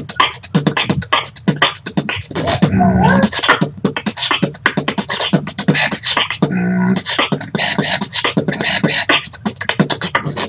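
Beatboxing: a fast, dense rhythm of percussive mouth sounds, with a short held pitched note about three seconds in and again near seven seconds.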